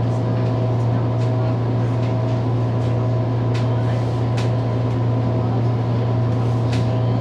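Steady low hum of a Hong Kong MTR subway train, with a fainter steady whine above it that drops in and out and a few light clicks.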